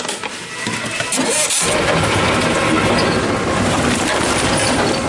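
Tomra T-63 HCp reverse vending machine's motor starting up about a second and a half in, then running with a steady mechanical noise.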